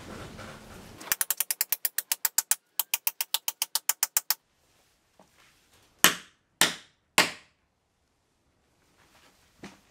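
Steel hammer striking drift pins into the laminated timber keel and deadwood: two fast runs of rapid sharp blows, then three single heavy blows about half a second apart and one more near the end.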